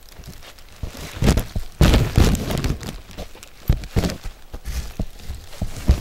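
Footsteps and rustling on a leaf-littered forest trail, with irregular thumps of handling noise from a camera carried while walking; the loudest bumps come about two seconds in.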